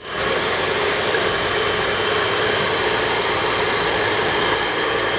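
Electric hand mixer starting up and running steadily, its beaters whisking eggs in a glass bowl.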